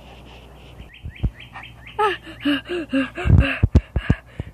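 A run of short, high chirping calls, each rising and falling, about five a second, followed by several dull knocks from a toy figure being handled on sand.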